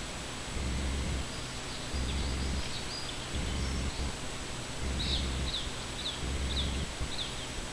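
A small bird calling: a few faint high chirps, then a run of five short, high, downward-sliding chirps about two a second near the end. Underneath is a steady hiss with a low rumble that comes and goes.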